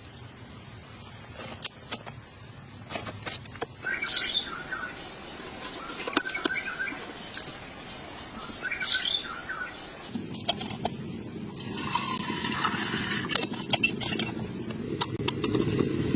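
A few short bird chirps among scattered sharp clicks and knocks, then a steady rushing noise sets in about ten seconds in.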